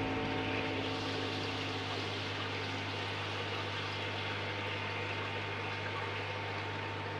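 Aquarium pump humming steadily under a constant wash of water noise in the fish tank.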